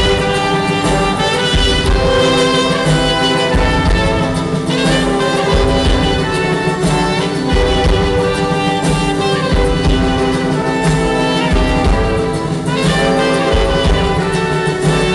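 Live brass-led folk band playing an instrumental passage: trumpet and a large brass horn carry the tune over ukulele, mandolin and accordion, with a steady low beat underneath.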